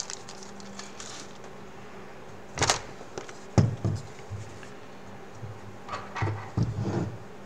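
Handling noises: faint crinkling of a clear plastic bag, then a few scattered rustles and a sharp knock as a plastic VR headset is picked up and moved on a table.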